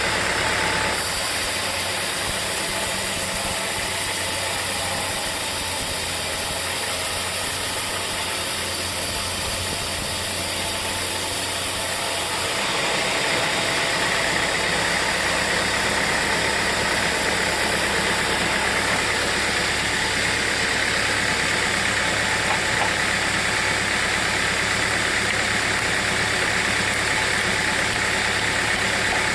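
Sawmill machinery running steadily, with its tone shifting about a second in and again about twelve seconds in.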